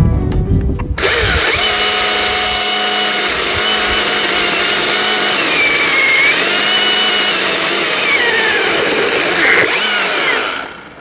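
Battery-powered chainsaw running under load, its electric motor whine dipping in pitch a few times as the chain bites into the birch. It starts about a second in and stops near the end.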